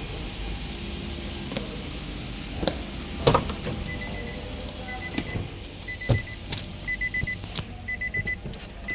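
Short electronic beeps in quick little bursts, about one burst a second, starting about four seconds in, over a steady low hum, with a few sharp knocks and clicks.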